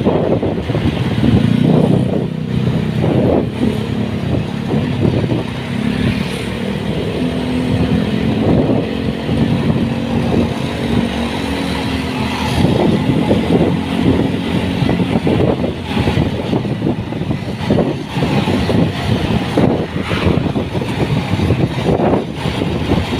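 Road vehicle running past, with a low droning tone that fades about two-thirds of the way through, over steady road and wind noise.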